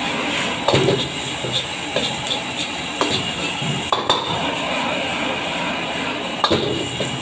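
Crumbled egg sizzling in a hot metal wok as it fries toward crisp, with a metal spatula clanking and scraping against the wok several times while the wok is shaken and stirred.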